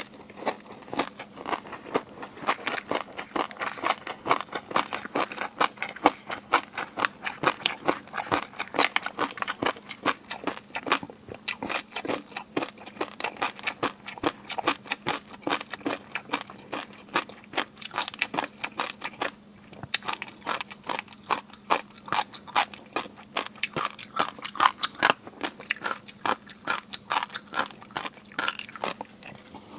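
Close-miked ASMR eating: a person chewing and crunching seafood in a dense run of quick, sharp crunches and wet mouth clicks, with brief lulls about 11 and 20 seconds in.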